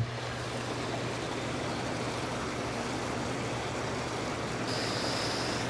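Hot tub jets running: the jet pump's steady low hum under the rush of churning, bubbling water. A high steady whine joins near the end.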